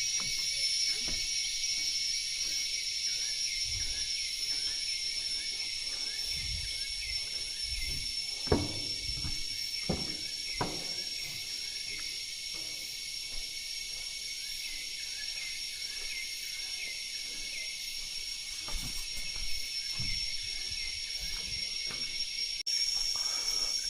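Rainforest insects droning steadily in a high, even hiss with one piercing held tone, and a few soft knocks near the middle.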